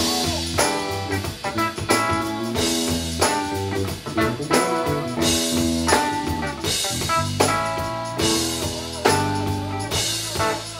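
Live band playing: drum kit keeping a steady beat under electric bass and hollow-body electric guitar, with notes changing throughout.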